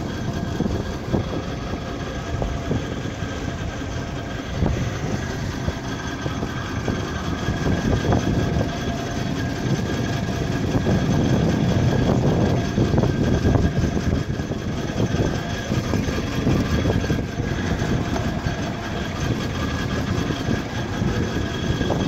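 A drilling rig's engine running steadily at a water-well drilling site, with a low rumble that swells slightly about halfway through.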